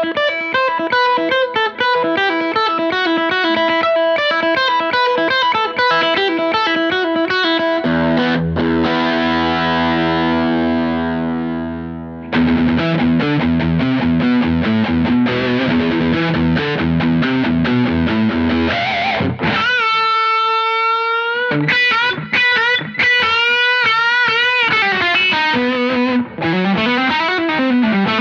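Distorted electric guitar played through a Laney Ironheart pedal. It plays fast single-note riffs, then a low chord left ringing for about four seconds near the middle, then more riffing. Near the end come sustained notes that are bent and wavering.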